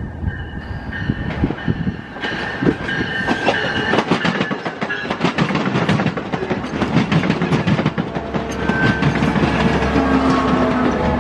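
Train passing close by, its wheels clacking rapidly over the rail joints and growing louder, with a few thin high tones over the clatter.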